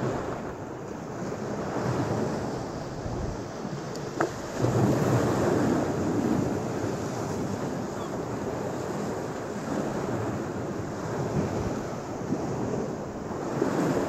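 Small Lake Michigan waves washing onto a sand beach, with wind buffeting the microphone. The surf swells louder about four and a half seconds in.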